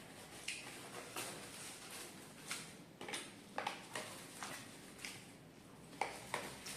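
Close-up eating sounds of crispy fried duck being chewed: irregular crunches and wet mouth clicks, one or two a second.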